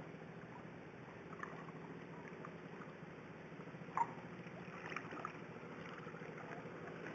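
Water trickling and splashing faintly around a small paddle boat on shallow floodwater, with a few sharp drip-like splashes about four and five seconds in, over a steady low hum.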